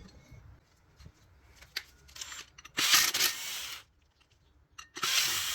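Two brief scraping rubs, about a second each, with a few light clicks between them, as the rear drum brake's drum is worked off the hub.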